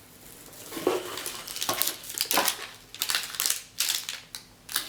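Wrapped ration-pack food packets crinkling and rustling as they are handled, in a run of irregular crackles.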